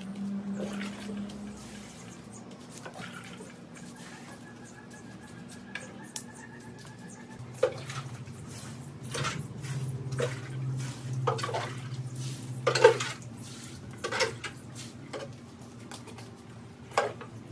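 A can scooping water from a plastic bucket and pouring it, knocking against the bucket several times from about halfway through, with water splashing and dripping, over a low steady hum.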